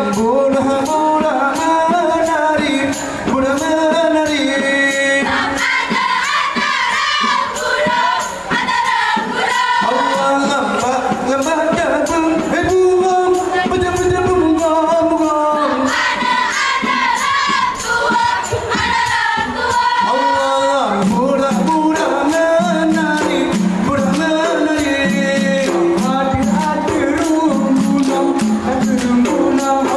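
Live music for a Ratoh Jaroe dance: singing in a wavering, chant-like melody over fast, continuous frame-drum and hand percussion.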